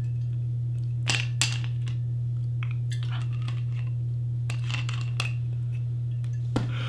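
Steady low hum, with a few faint light clinks and taps about a second in and again around three to five seconds in.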